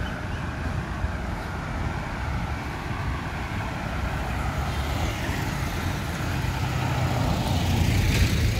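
Road traffic beside the walker: engines running steadily, with a vehicle growing louder and passing close about eight seconds in.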